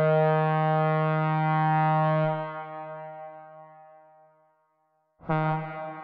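Synthesized recreation of a Leslie A-200 two-chime train horn. A long blast cuts off about two seconds in and dies away in an echoing reverb tail. A second, shorter blast starts sharply near the end.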